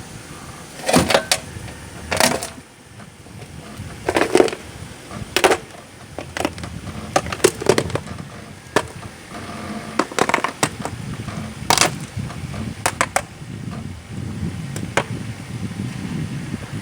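A string of sharp metallic knocks and clanks, about a dozen spread irregularly, over a low steady rumble, as the bent steel rack part is worked on with the car.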